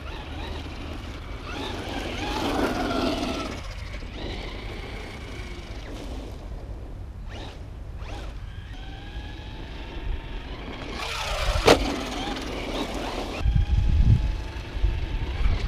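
Traxxas Rustler 4x4 RC truck driving on a loose dirt track: the whine of its electric motor rises in pitch as it accelerates, over the hiss of tyres on dirt. There is one sharp knock about two-thirds of the way through, and a low wind rumble on the microphone near the end.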